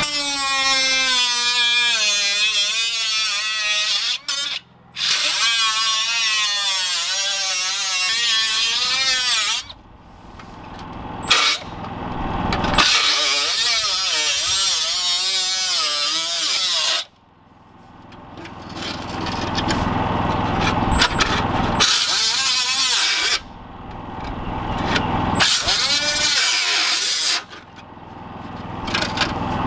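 A cordless power tool cutting into black steel stovepipe in four runs of several seconds each, with short breaks between. The motor's pitch sags and wavers under load.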